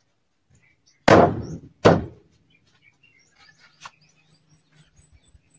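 Two heavy wooden thunks, a little under a second apart, as a solid wooden panel door is knocked against its timber frame. Light wooden clicks and taps follow as it is handled.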